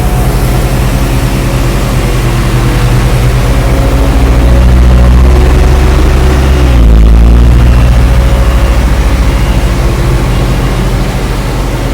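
Engine of heavy asphalt-paving machinery running under load, its pitch rising gradually, dropping sharply about seven seconds in, then steadying again.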